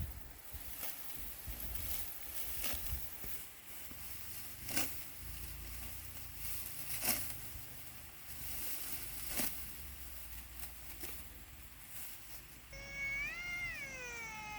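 Rice stalks being cut by hand, with sharp, crisp snaps every one to two seconds over a low rumble. Near the end comes a high, wavering cry that rises and falls.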